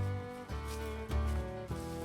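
Background music: a plucked-string tune over a bass line whose notes change about every half second.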